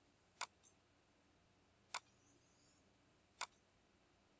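Computer mouse clicking three times, sharp single clicks about a second and a half apart, with near silence between them.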